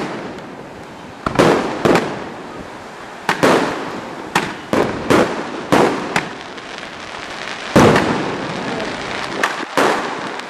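Aerial firework shells bursting overhead in a rapid series of sharp bangs, roughly one or two a second, each followed by a trailing echo.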